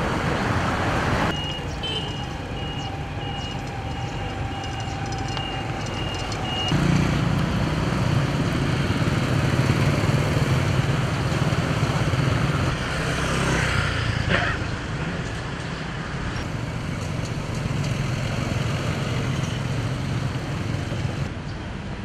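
Street traffic: motorbikes and cars passing on a town road, a steady rumble and hiss that changes abruptly a couple of times.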